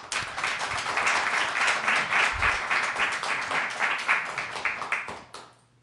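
Studio audience applauding: dense clapping that dies away about five seconds in.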